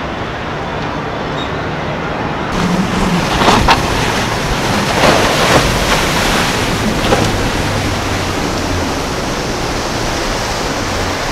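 Water rushing and splashing as a center-console boat with four outboard motors runs fast through choppy inlet water, with several louder splashes from the hull and wake. A steady low engine drone comes in over the last few seconds.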